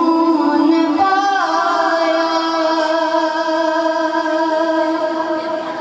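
A boy singing a naat, a devotional poem in praise of the Prophet Muhammad, into a handheld microphone: a short phrase, a bend in pitch about a second and a half in, then one long held note.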